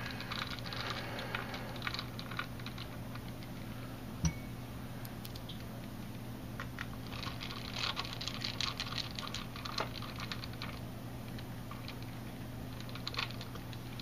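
Small screwdriver turning the heatsink screws on the back of a graphics card, making bursts of fine metal clicking and scraping, with a single knock about four seconds in. A steady low hum runs underneath.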